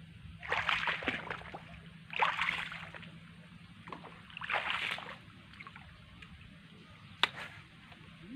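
A paddle dipping into the water of a small boat: three sloshing strokes about two seconds apart, then a single sharp click near the end.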